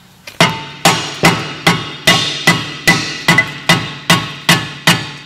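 Ball-pein hammer striking the rear brake disc of a Ford Mondeo Mk5 in steady, even blows about two and a half a second, each blow ringing metallically, to knock free a disc that is stuck to the hub.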